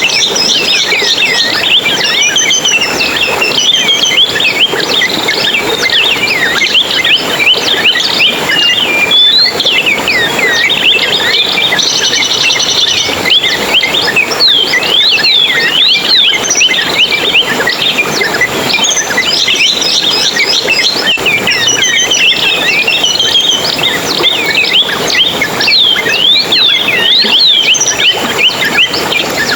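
A dense, continuous chorus of small songbirds chirping and twittering, with many quick high rising and falling notes overlapping without a break.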